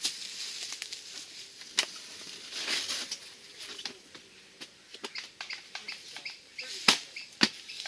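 Someone rummaging through food and gear in a car's load area: paper and plastic bags rustling, with scattered sharp knocks and clicks, the two loudest close together near the end.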